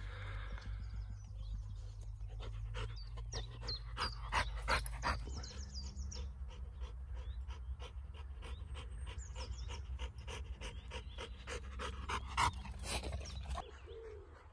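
Chocolate Labrador retriever panting in a steady rhythm of about three to four breaths a second, with birds chirping and a low wind rumble on the microphone.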